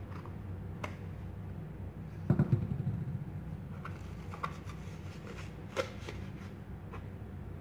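Black plastic belt-sander part handled and wiped with a tissue: light clicks and rustling, with a louder rubbing bump between about two and three seconds in, over a steady low hum.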